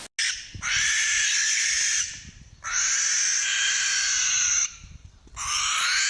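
Barn owl screeching: three long screams of about two seconds each, separated by short pauses.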